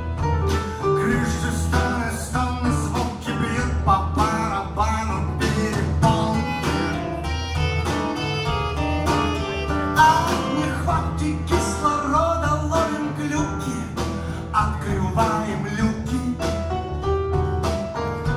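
Live band playing an instrumental passage, heard from the crowd: a saxophone carries a bending melody over guitar, a steady bass line and a regular drum beat.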